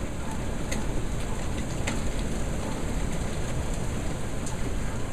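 Heavy rain mixed with pea-sized hail: a steady hiss with scattered sharp ticks of hailstones striking, over a steady low rumble.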